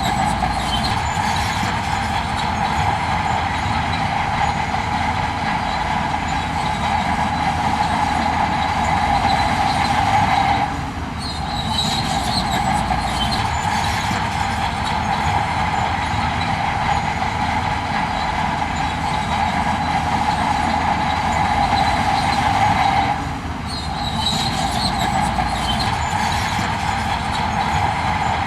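Heavy earthmoving machinery running steadily, an engine drone with metallic squealing and clatter, dipping briefly twice.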